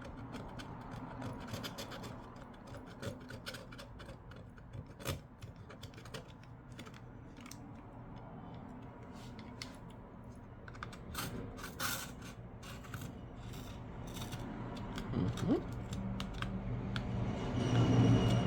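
A hand tool scraping old adhesive off an iPad 2's frame: irregular scratching with small clicks and taps. A low hum comes in near the end.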